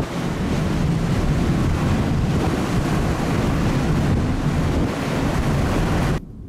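Strong wind buffeting the microphone over the steady rush of the sea, heard from a moving ferry. It drops away abruptly near the end.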